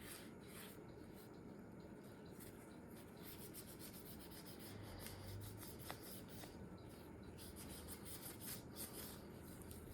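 Faint rubbing and scraping as a disassembled Glock pistol's parts are handled, with a light click about six seconds in.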